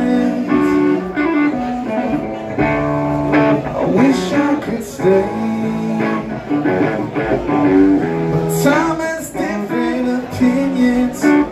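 Live blues-rock band playing: electric guitar, bass and drums, with a harmonica played into a microphone over them.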